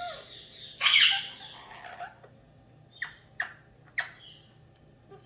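Pet parakeet calls: one loud, harsh squawk about a second in, then three short, sharp chirps a few seconds later.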